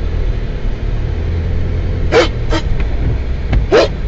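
Low, steady rumble of a car's engine and tyres heard from inside the cabin as it creeps along a snowy road. Three short hissing sounds come about two seconds in, half a second later and near the end, with a single sharp click just before the last.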